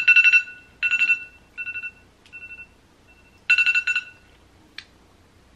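Smartphone countdown-timer alarm going off: a rapidly pulsing two-tone electronic alert in a string of short bursts, some fainter, the last loud burst about three and a half seconds in. It marks the end of the challenge's time limit. A short click follows near the end.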